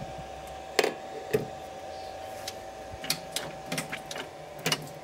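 Sharp metal clicks and clunks from the open headstock gearbox and controls of a 1938 lathe being handled, a dozen or so at uneven spacing, the loudest about a second in and near the end, over a faint steady hum.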